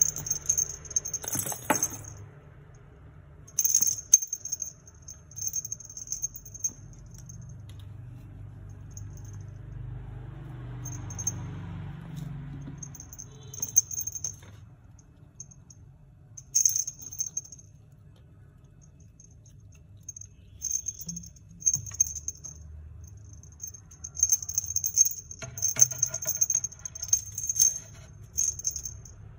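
Small jingle bell on a feather wand cat toy jingling in repeated bursts as kittens bat at it, busiest near the end, with a few sharp taps among the jingles.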